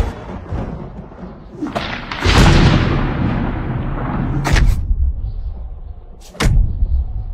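Film sound effects for a fight in a thunderstorm. A loud boom sets in about two seconds in and slowly fades, and two sharp cracks follow, about four and a half and six and a half seconds in, over a low rumble.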